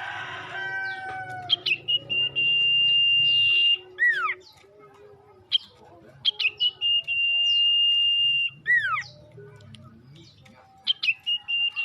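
Male sirtu songbird singing a repeated phrase: a few quick clipped notes, then a long, steady, high whistle held for about two seconds, ending in two swooping notes that fall in pitch. The phrase comes three times, and a harsher, noisier call with falling notes comes near the start.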